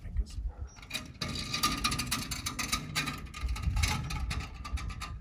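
Terracotta chimney pots grating and clicking against the brick chimney top as they are shifted into place. A rapid gritty scraping starts about a second in.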